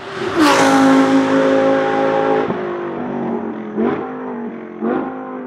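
Audi R8 LMS GT2's 5.2-litre V10 race engine going by at full throttle, loud from about half a second in, its note dropping slightly as it passes. About two and a half seconds in the throttle lifts, and two quick downshift blips follow about a second apart as the car brakes for the corner.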